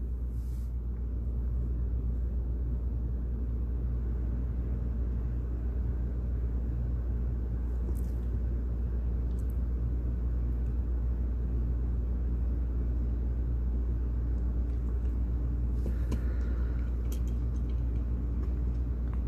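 Steady low hum, with a few faint clicks about 8 and 16 seconds in.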